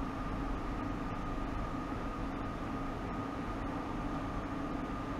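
Steady hum and hiss of running equipment, with a faint constant high tone; nothing starts or stops.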